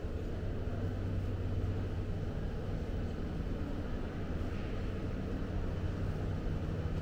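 Steady low rumble of indoor shopping-mall ambience: a constant drone with no distinct events.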